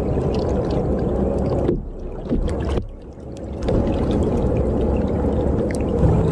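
Steady low rushing noise of wind and water around a kayak on open water, with scattered faint clicks. It drops away briefly twice, about two and three seconds in.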